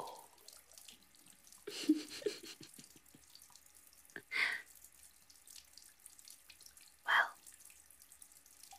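Bath tap running into a bathtub, a faint steady pour and splash of water. Three short breathy sounds stand out over it: about two seconds in (the loudest), near the middle, and about seven seconds in.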